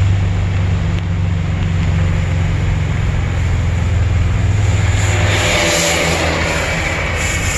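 A four-wheel-drive vehicle's engine running steadily with a low hum as it drives. About five seconds in, a rushing hiss rises over it.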